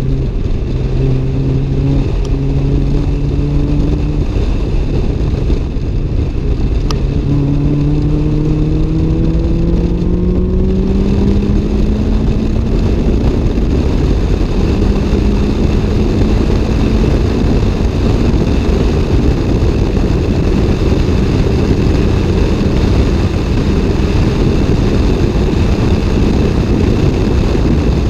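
Toyota AE86's 4A-GE four-cylinder engine heard from inside the cabin under track driving. Its pitch climbs steadily between about 7 and 12 seconds in as the revs rise, after which the sound turns rougher and brighter and holds steady.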